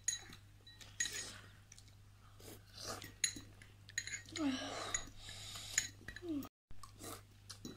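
Metal forks clinking and scraping against glass bowls while noodles are eaten, in light, scattered clicks.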